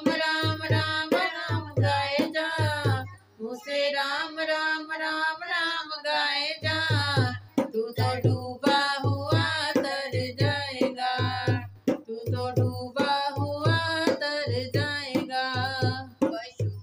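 A woman singing a devotional bhajan to harmonium, with a hand drum keeping a steady beat of about two strokes a second. The drum drops out for about three seconds while the voice holds long notes, then comes back.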